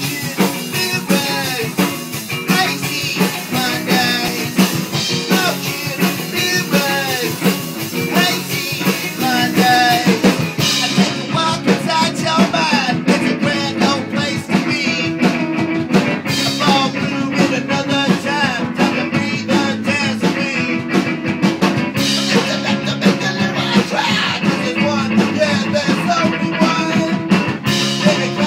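Up-tempo rock music with a drum-kit beat, bass and guitar.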